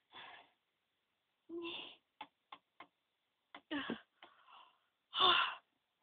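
Short, breathy wordless vocal sounds from a person, a few of them pitched, with the loudest near the end. Three quick light clicks come about two seconds in.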